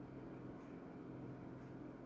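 Faint steady low hum with light hiss: quiet room tone, with no distinct handling sounds.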